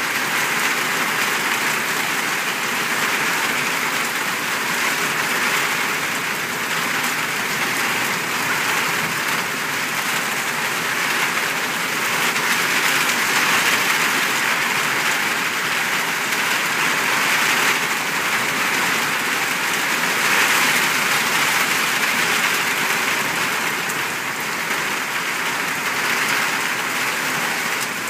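Heavy rain pouring steadily onto pavement and standing water, a dense, even hiss of countless drops.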